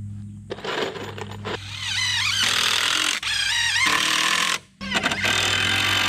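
Cordless drill driving wood screws into lumber, its motor whine rising and falling as the trigger is worked, with a brief break about three-quarters of the way through.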